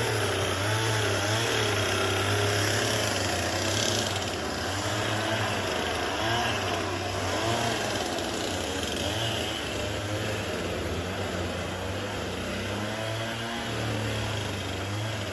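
An engine running steadily with a low drone, amid the busy noise of log-building work.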